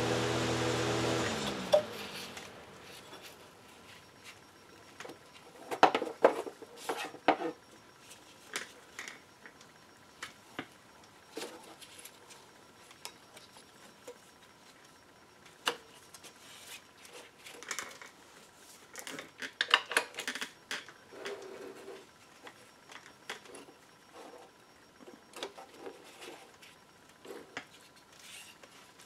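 Scattered clicks, knocks and light rattles of gloved hands and tools working a serpentine belt onto the pulleys of an Audi 2.8 V6, in irregular clusters. A steady machine hum cuts off suddenly about a second and a half in.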